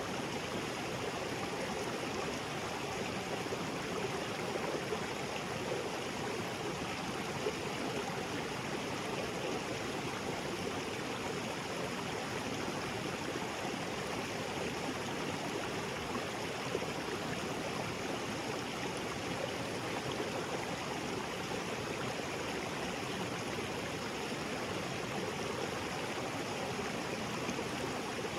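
Small waterfall spilling into a rocky creek: a steady rush and splash of falling water with no change in level.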